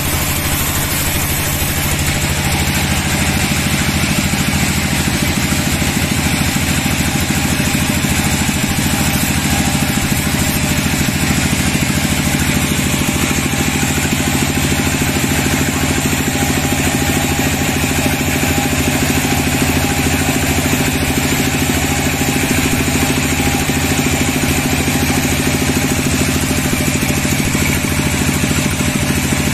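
Sawmill log band saw running steadily, its blade ripping lengthwise through a dry teak log: a constant low machine drone with an even hiss of the cut.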